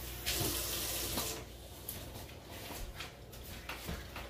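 Water running or pouring with a steady splashing hiss, loud for about the first second and a half and then fainter, with a few light knocks.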